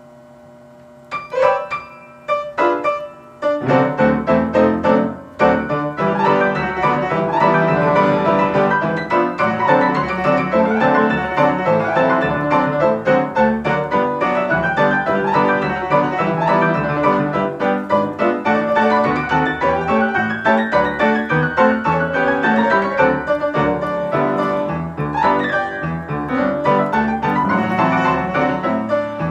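A 1929 Conway player piano playing a paper music roll. After a few separate chords in the first few seconds, a busy, continuous tune runs on.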